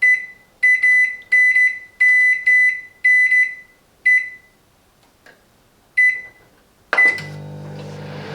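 Silvercrest SMWC 700 D1 microwave's control panel beeping as its settings are entered: about a dozen short high beeps, each with a click, coming in quick irregular runs. About seven seconds in, the oven starts and runs with a steady low hum.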